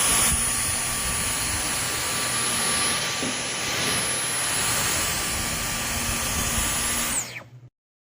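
Dyson V15 Detect cordless stick vacuum running, a steady high-pitched motor whine over a rush of air. It is switched off near the end, the whine falling as the motor spins down.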